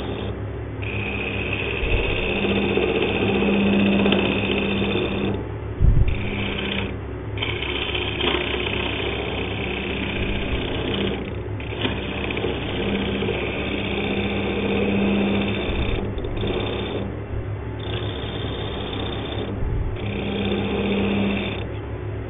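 Wood lathe running with a steady motor hum while a hand-held chisel cuts the spinning hardwood blank. The scraping of the cut comes and goes as the tool meets the wood and lifts off, with a low knock about six seconds in.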